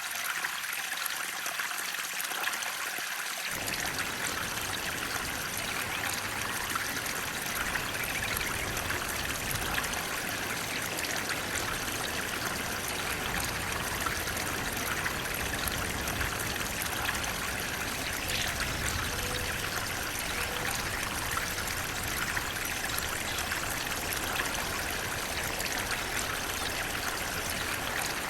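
Flowing water rushing and trickling steadily, like a small stream or waterfall, with a deeper low rush joining about three and a half seconds in.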